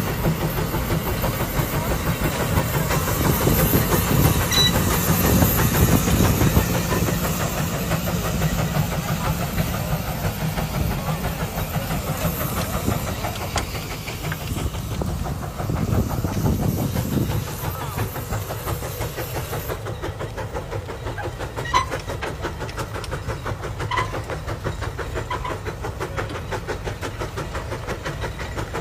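Case steam traction engine working under load as it hauls a large gang plow: a steady rumble and steam hiss with the plow rattling, and a few sharp clicks late on.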